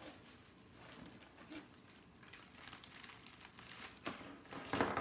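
Plastic packaging bags rustling and crinkling as they are handled, with small scattered clicks; the loudest crinkle comes near the end.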